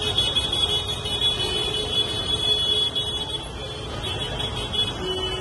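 Busy street traffic heard from a moving motorbike: engine and road noise, with a steady high-pitched electronic beeping tone over it. A vehicle horn starts sounding near the end.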